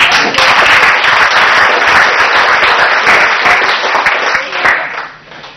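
A roomful of dinner guests applauding for about five seconds, the clapping dying away near the end.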